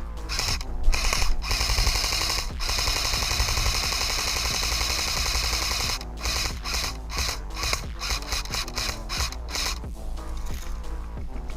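Airsoft gun firing on full auto, a rapid mechanical rattle. It runs as one long burst, then breaks into shorter bursts past the middle.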